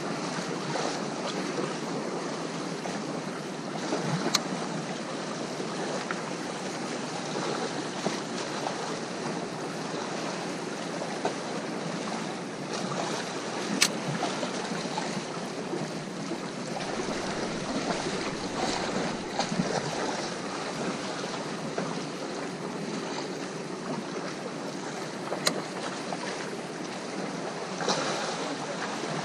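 Sea surf washing onto the shore, with wind on the microphone, a steady wash of noise broken by a few sharp clicks.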